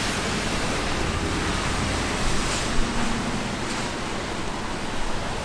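Steady hiss of rain and wet-street noise in a city at night, with a low rumble swelling between about one and three seconds in.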